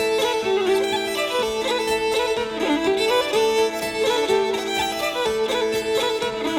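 Fiddle music: a quick, stepping melody over steady held notes.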